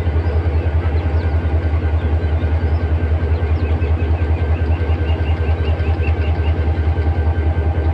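Diesel locomotive engine of a 1500 hp 2605-series locomotive idling while standing still, a loud, steady low throb that pulses evenly.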